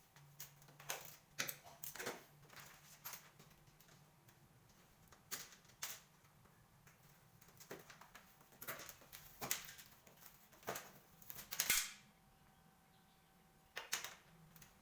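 Irregular sharp clicks and taps of tools and parts being handled during TV repair work, some in quick clusters, over a faint steady low hum.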